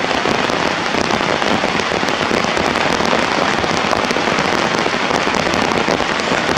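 Heavy rain falling steadily: a dense, even patter of countless drops.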